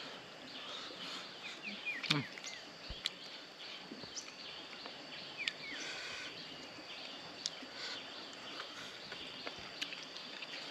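Rural tropical background: a steady high insect drone, a few short bird chirps, and scattered light clicks.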